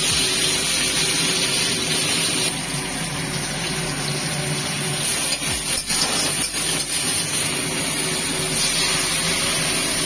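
Tomatoes and whole spices sizzling steadily in hot oil in an aluminium kadai, the tempering (tadka) for dal, with a metal spatula scraping the pan a few times about halfway through.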